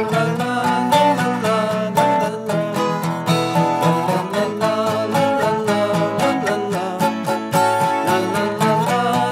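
A wood-bodied resonator guitar and a steel-string acoustic guitar played together in a country-folk song, with singing.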